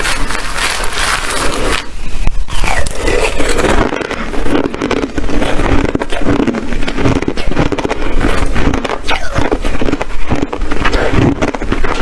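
Hard ice being bitten and chewed close to the microphone: a continuous run of loud crunches and cracks.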